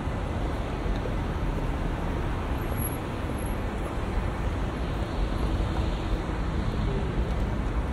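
Steady street traffic noise: a continuous wash of passing cars and engines at a busy junction.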